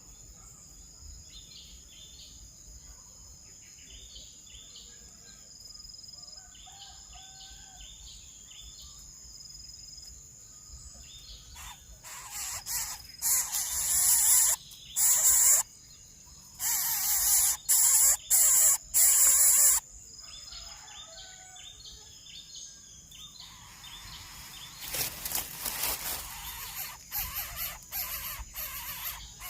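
Birds calling over a steady high whine, with a run of loud, harsh rasping bursts about halfway through and more short bursts near the end.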